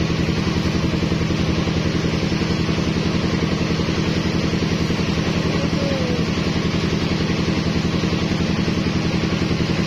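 Engine-driven rice threshing machine running steadily, its engine giving a fast, even beat at a constant level.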